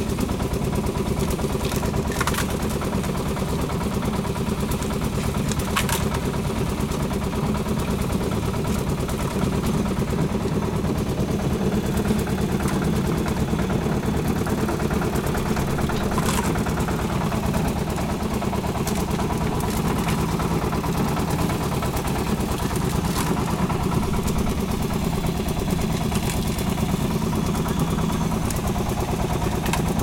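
Diesel engine of a concrete mixer running steadily at a constant speed, with a few short sharp knocks now and then.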